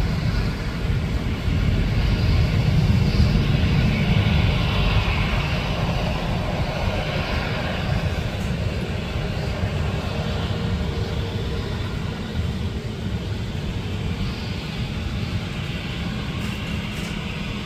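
Jet engines of an Airbus airliner at takeoff power, a continuous low rumble with a rushing hiss, loudest a few seconds in and then slowly fading as the aircraft moves away.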